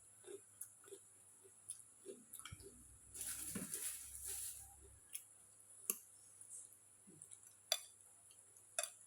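Close-up eating sounds of a person eating spicy instant noodles: soft rhythmic chewing, a louder noisy stretch of a second or two about three seconds in, and a few sharp clicks.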